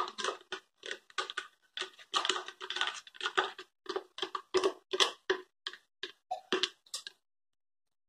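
A utensil scraping carrot cake batter out of a plastic blender jar into a steel bowl: a run of short scrapes and taps, about three a second, that stops about seven seconds in.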